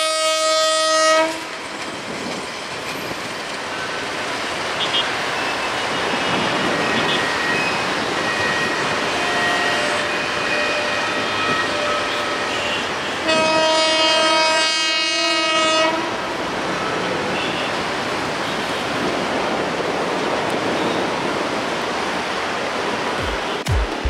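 Surma Mail passenger train rolling past, its coaches clattering steadily over the rails. The diesel locomotive's horn sounds at the start and again for about three seconds midway.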